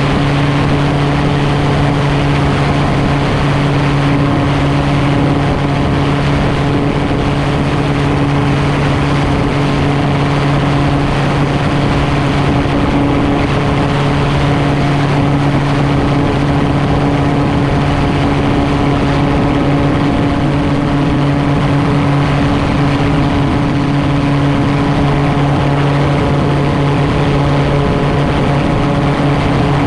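Gyroplane engine and propeller running at a steady, unchanging drone while the aircraft taxis.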